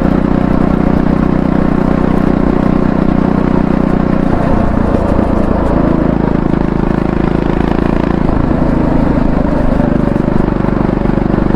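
Triumph Scrambler 400X's 398 cc single-cylinder engine running, its note dipping about four seconds in and picking up again around six seconds.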